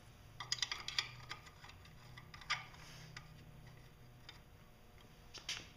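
Faint light clicks and taps as small brass temperature sensors are handled and started by hand into the threaded ports of a thermostat housing. There is a quick cluster about a second in, then a few single clicks.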